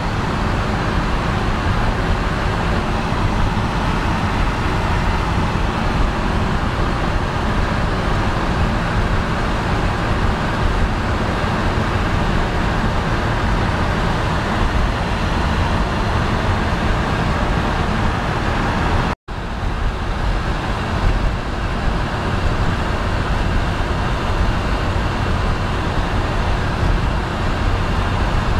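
Cabin sound of a 1950 DeSoto Deluxe under way: its flathead six engine drones steadily along with road and wind noise. The sound cuts out for an instant about two-thirds of the way through.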